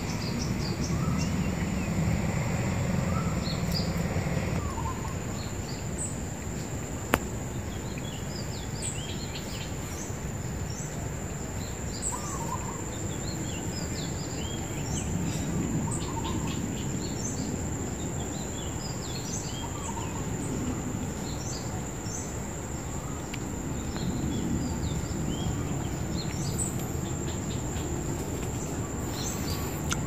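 Outdoor ambience of small birds chirping here and there over a steady high-pitched tone and a low background rumble. The rumble is stronger for the first few seconds, and there is one sharp click about seven seconds in.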